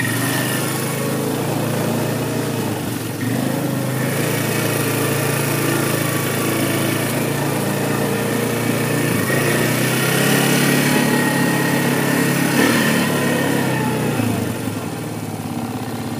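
Four-wheeler (ATV) engine running as it drives. Its pitch rises and falls a few times as the throttle is worked, then eases off near the end.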